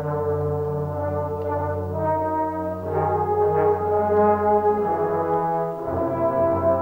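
A trombone choir, with bass trombones and tuba beneath, playing slow sustained chords over a held low bass note. The chords shift about two and three seconds in, and the bass moves to a new note near the end.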